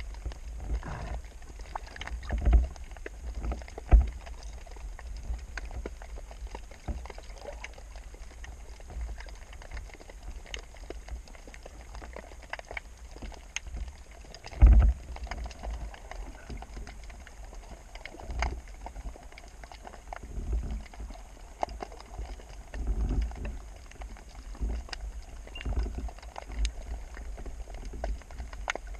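Muffled water and handling noise on a camera in a waterproof housing during a spearfishing dive: a low rumble with scattered knocks and clicks, the sharpest about 4 seconds in and near the middle.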